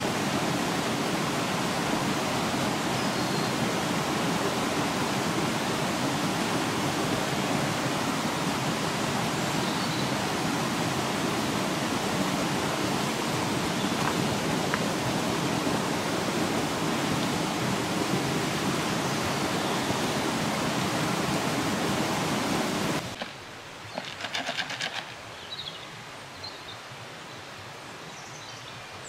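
Stream water rushing, a loud steady noise that cuts off suddenly about 23 seconds in. Quieter woodland sound follows, with a few rustles and faint bird chirps.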